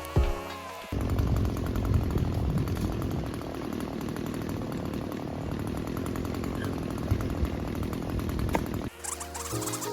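A weed eater (string trimmer) engine runs steadily for about eight seconds, cutting in suddenly about a second in and stopping shortly before the end. Background music plays on either side of it.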